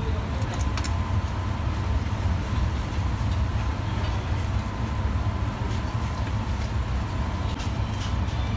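Steady low machine rumble of a working kitchen, with a faint steady high tone and a few light clicks.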